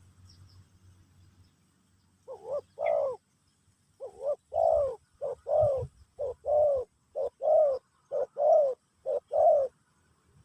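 Spotted dove (terkukur) cooing: a run of about seven short-then-long coo pairs, one pair roughly every second, starting about two seconds in.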